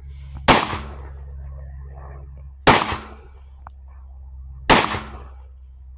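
Three gunshots from a five-shot Taurus .357 Magnum revolver, about two seconds apart, each a sharp crack with a short echo after it.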